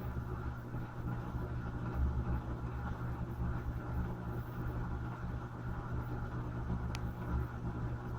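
Electrolux LM13Q top-load washing machine running with a steady low hum, late in the cycle after its spin. A faint click about seven seconds in.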